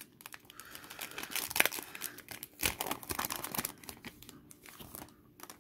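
Foil Yu-Gi-Oh! booster pack wrapper crinkling and crackling as it is handled, in irregular rustles that thin out near the end.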